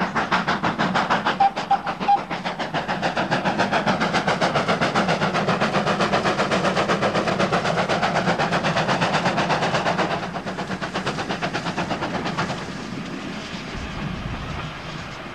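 Steam train running at speed, a fast, even rhythm of beats. The beats soften after about ten seconds and fade further near the end. Three short high pips sound about a second and a half in.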